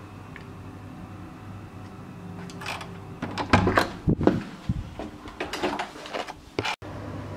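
Hotel room door being opened: the metal lever handle and latch click, then a run of knocks and rattles as the door swings open, the loudest clicks just before halfway.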